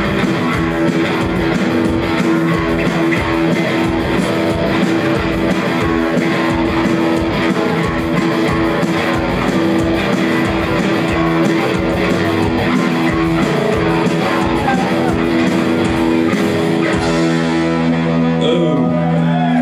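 Live punk rock band playing: electric guitar and bass over a steady drum beat. Near the end the drums drop out and a held guitar chord rings on.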